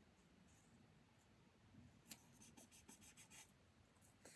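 Near silence with faint soft scratching and rustling of paper as sticky notes are handled, mostly in a short cluster of strokes from about two to three and a half seconds in.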